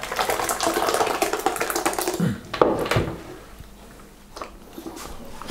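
Thick, creamy tomato mousse mixture pouring and slopping out of a plastic bucket into a plastic bowl for about two and a half seconds, then a single knock about three seconds in.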